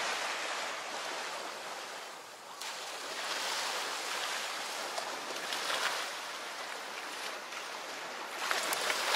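Small sea waves washing onto a sand beach: a steady hiss of surf that swells and eases, changing abruptly about two and a half seconds in.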